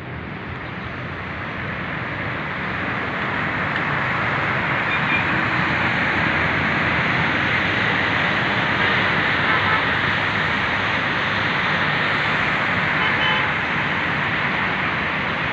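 Steady road traffic noise from a busy multi-lane road below, cars and motorbikes passing, growing louder over the first few seconds. A couple of faint horn toots are heard, about five seconds in and near the end.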